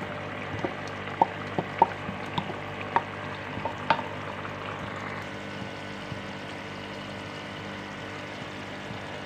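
A metal spoon clinking against the side of a metal cooking pot about nine times in the first four seconds as chicken and potatoes are stirred into cooked spinach, over the steady sizzle of the curry cooking on the stove.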